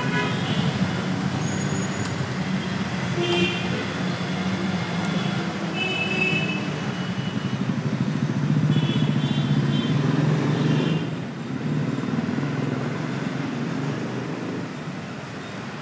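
Steady road traffic with a motorcycle engine running close by, growing louder and then dropping away sharply about eleven seconds in as it stops. A few short high-pitched tones sound now and then over the traffic.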